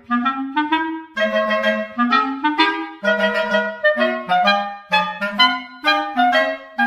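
Background music: a lively melody of quick, short notes over a moving bass line.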